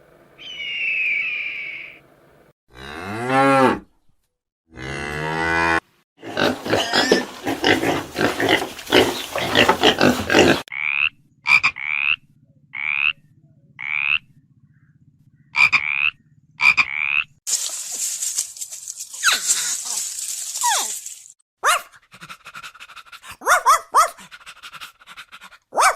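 A run of different animal calls cut one after another: a honk just after the start, then two long, deep moos from a cow, followed by a stretch of rough noisy calls, a string of short repeated rising squeaks, a hiss, and scattered clicks near the end.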